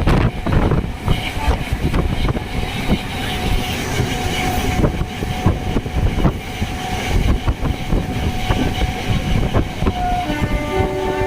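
A train running on its rails, with a rumble and a rapid, irregular clatter of wheels over the rail joints. About ten seconds in, the train's horn sounds a steady chord of several tones.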